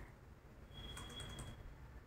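Faint crackling of oil around chillies deep-frying in batter, a few soft clicks close to silence.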